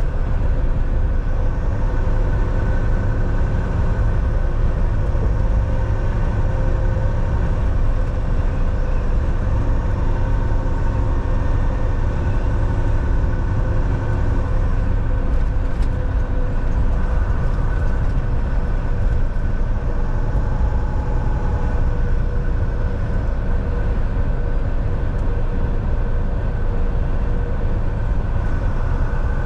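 Volvo semi truck under way: a steady low rumble of engine and road noise, with a few faint steady tones over it.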